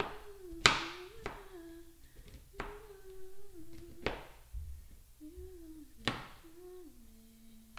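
A chef's knife chopping mushrooms on a plastic cutting board: about half a dozen sharp, irregularly spaced knocks of the blade on the board, the loudest near the start. A voice hums a slow tune under the chopping.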